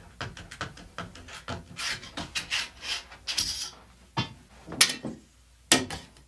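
A metal mason-jar lid rubbed and scraped against a wooden bar top in quick repeated strokes, followed by a few sharp knocks in the second half.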